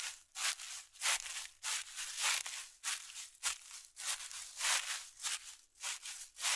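Footsteps crunching through dry leaf litter and swishing through grass and undergrowth, a steady walking rhythm of about two to three steps a second.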